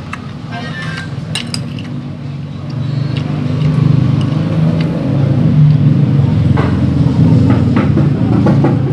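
A motor vehicle's engine running close by, a low rumble that grows louder about three seconds in, with light clinks of a metal spoon and fork on a china plate.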